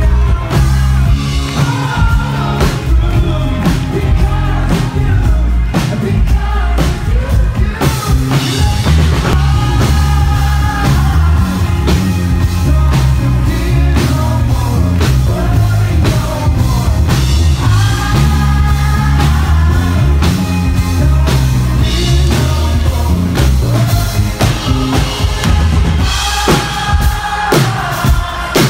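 A live band playing a pop-rock song: a lead singer over a drum kit and heavy bass, the band growing fuller about eight seconds in.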